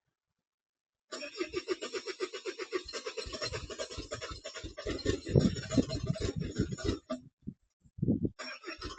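Starter motor cranking a diesel engine with a steady rhythmic chug that does not catch: the engine is not starting after an injection pump swap and retime. The cranking stops about seven seconds in, gives two short bumps, then starts again.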